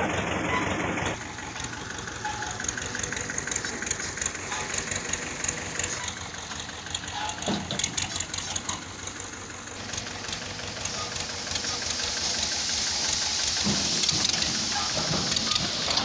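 Tractor diesel engine running steadily at idle, with an even low pulse and a hiss over it.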